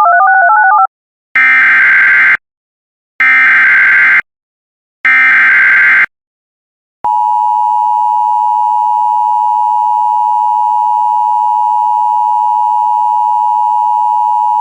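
Emergency Alert System tones. A warbling tone alternating between two pitches plays for about the first second, then come three one-second bursts of SAME header data screeches. From about seven seconds in, the steady two-tone EAS attention signal plays.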